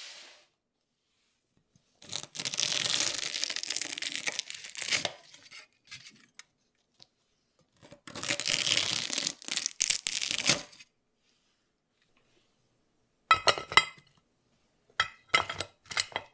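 Slotted metal spatula scraping under freshly baked cookies on a silicone baking mat, in two long strokes. Later come a few quick clusters of sharp clicks as the crisp cookies are stacked in a ceramic dish.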